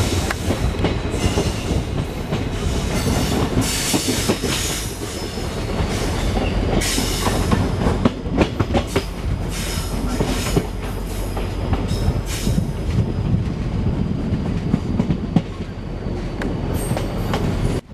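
A passenger train running on the rails, heard from an open coach window: a steady rumble with irregular wheel clicks over rail joints and points, and a thin high wheel squeal.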